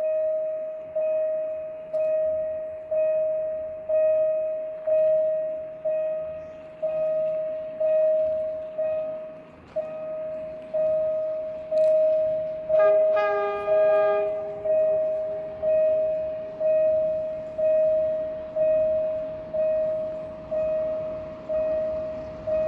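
Level crossing warning bell striking steadily about once a second, each ring fading before the next. About 13 seconds in, the approaching diesel locomotive's horn sounds once for about a second and a half. Near the end, the rumble of the oncoming train rises under the bell.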